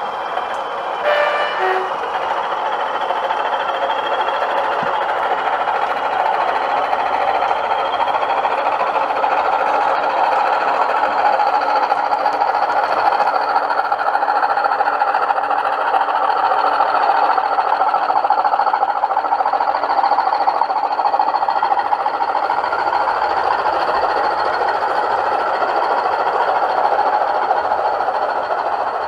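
O gauge model Class 20 diesel locomotives running on DCC sound: the onboard speakers play a steady diesel engine sound, mixed with the running noise of the model on its track. There is a brief knock about a second in.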